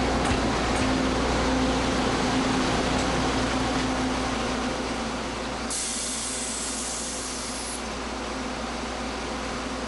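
Train running with a steady hum. A high hiss of air starts about six seconds in and lasts about two seconds.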